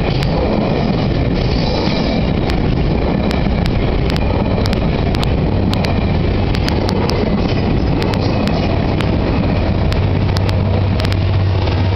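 GO Transit bilevel commuter train passing close by: the steady rumble of the coaches on the rails with sharp wheel clicks over rail joints. The deep drone of the diesel locomotive pushing at the rear swells near the end.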